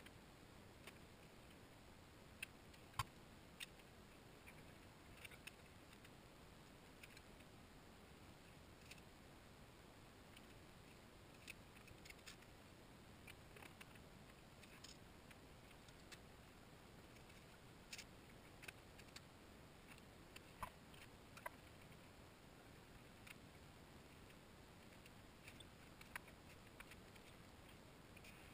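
Near silence with scattered light clicks and taps from handling metal stock and tools on a steel welding table, the sharpest about three seconds in.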